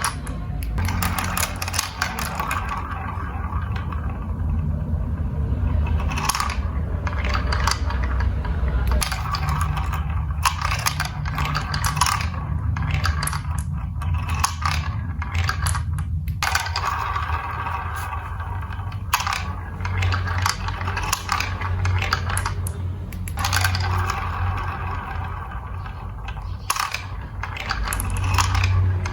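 Marbles rolling and rattling along plastic building-block marble-run track, with frequent clicks and clacks as they knock against the pieces and each other, over a steady low rumble.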